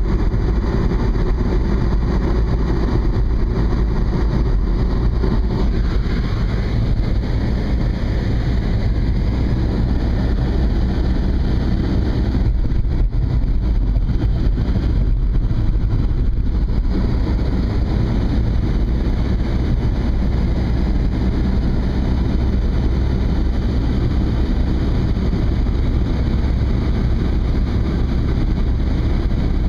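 Steady road and engine noise of a car driving along, heard from inside it, with low rumble throughout.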